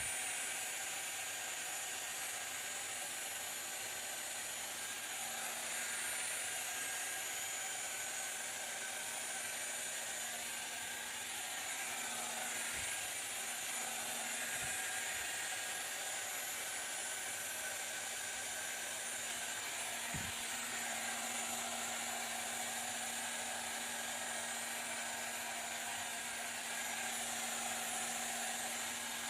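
Detachable-head hair dryer running steadily on its high-temperature setting: an even rush of air over a low steady hum.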